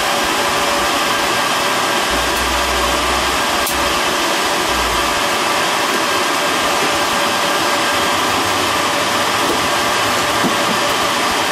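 Steady whir of cooling fans from running equipment in a server rack, with a single sharp click about four seconds in.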